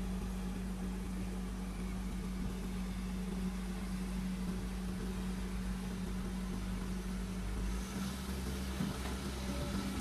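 Diesel engines of a Caterpillar excavator and a dump truck running steadily, a constant low hum. The engine note shifts slightly about eight seconds in.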